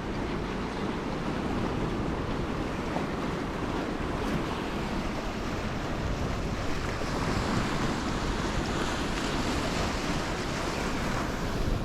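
Sea surf washing onto the beach, with wind rumbling on the microphone. The wash swells for a few seconds about two-thirds of the way through.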